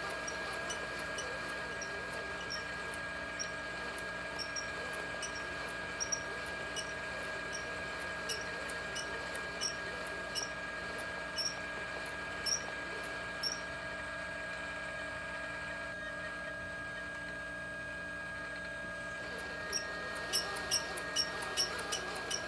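Electric RC trucks' 650-size brushed motors and drivetrains straining against each other in a stalled tug-of-war, giving a steady high whine. Short squeaky ticks come every second or so, pause for a few seconds, then return about three a second near the end.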